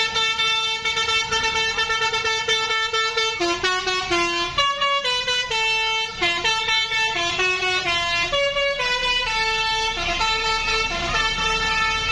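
Tour bus's basuri telolet horn, a multi-tone musical air horn, playing a tune. It holds one long note for about three seconds, then plays a run of notes stepping up and down, then holds a note again near the end.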